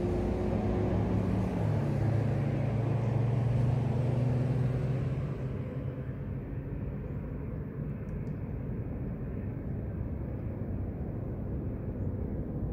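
A motor vehicle's engine runs with a steady hum. Its pitch drops about a second and a half in, and it fades after about five seconds, leaving a low, steady rumble.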